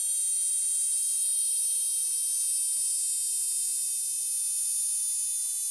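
Motopressor Minipump, a small digital electric tyre inflator, running steadily while pumping up a tyre: a loud, high-pitched whine with many overtones.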